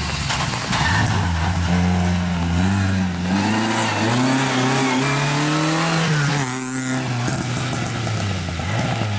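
Classic rally car engine revving hard on a wet stage, its pitch climbing in steps and dropping back with each gear change. A short rushing hiss comes about two-thirds of the way through.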